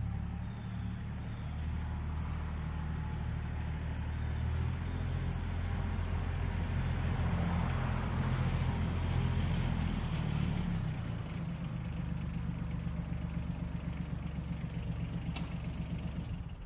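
Tractor engine running steadily, growing louder for a few seconds in the middle as it works under load, then cutting off abruptly at the end.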